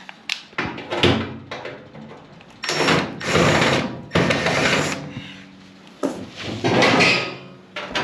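Cordless impact driver with a 5/16 nut-driver bit backing screws out of a dryer's sheet-metal lower front panel, running in three bursts: a short one about a second in, a longer one about three seconds in, and another near the end.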